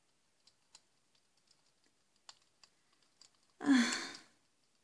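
A few faint, scattered clicks, then about three and a half seconds in a short breathy vocal sound from a voice actor, like a sigh, falling slightly in pitch.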